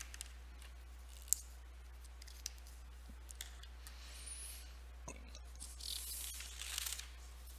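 Faint clicks and soft rustling and scraping of paper being handled, over a steady low hum.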